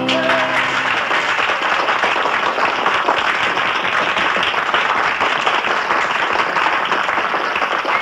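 Audience applauding, a dense, steady clapping. The band's last chord dies away in the first second.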